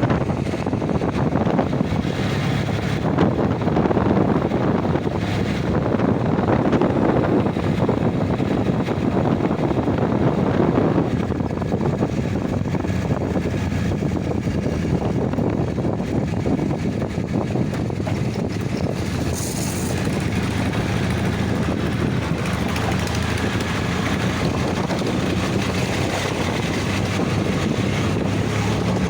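Engine running steadily while travelling, with wind rushing over the microphone.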